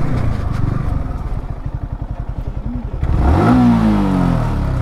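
Yamaha R15 M's 155 cc single-cylinder engine idling with a rapid, even putter, then one throttle blip about three seconds in that revs up and falls back toward idle.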